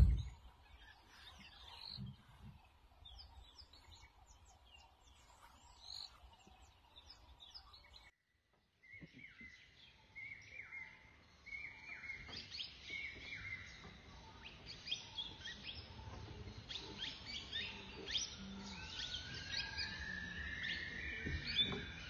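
Outdoor ambience of birds chirping and calling. Scattered short, high chirps at first, then a break of near silence about eight seconds in, followed by a denser, louder chorus of calls that builds toward the end.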